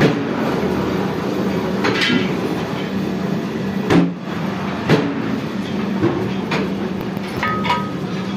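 Metal lathe running with a steady hum as it spins a steel truck wheel rim, with several sharp metal clanks and knocks, one ringing briefly near the end.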